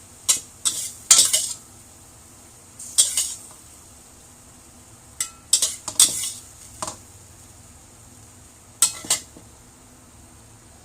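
A metal utensil clinking and scraping against cookware in short, irregular clusters, as when food is stirred or served from a pan, over a faint steady hiss.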